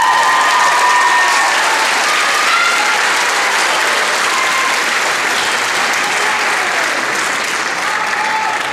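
Audience applauding loudly in an auditorium, with a few high sustained cheers over the clapping in the first second or two.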